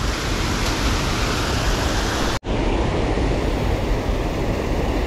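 Steady rush of water pouring over a freshwater spillway, broken once by a sudden split-second gap about two and a half seconds in.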